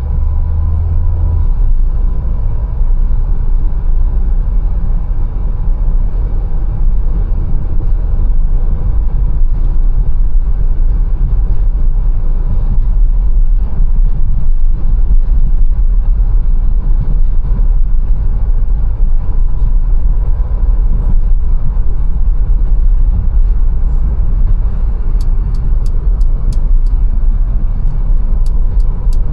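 Mercedes-Benz A180 on the move, a steady low rumble of engine and road noise. Near the end comes a run of evenly spaced light ticks, about two a second.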